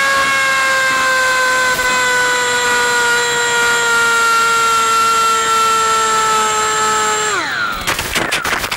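Electric motor and propeller of an RC plane whining steadily while its pitch sinks slowly, then winding down quickly about seven seconds in as the battery runs out of power. Sharp crackling follows near the end as the onboard audio and video link breaks up into static.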